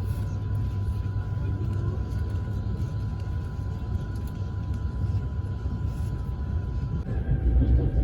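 Steady low rumble of a moving vehicle, with a thin steady whine over it; about seven seconds in the whine changes and the rumble grows louder.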